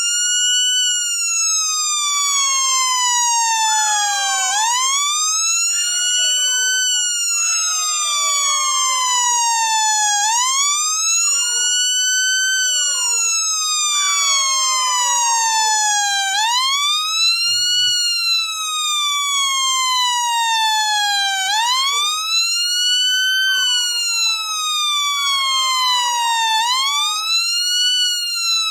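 Homemade two-transistor siren circuit sounding through a 4-inch speaker: a buzzy electronic wail that swoops up quickly while the push button is held, then glides slowly down after release. The rise-and-fall cycle repeats about every five to six seconds, five times.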